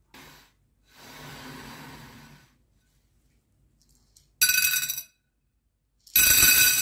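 Candy-coated chocolate buttons dropping onto a dark glass plate, clattering and making the glass ring. A short burst comes about four and a half seconds in, and a second near the end, after faint handling noise.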